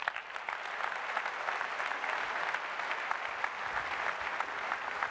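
Large audience applauding steadily in a big hall, a dense patter of many hands clapping that starts the moment a guest is introduced.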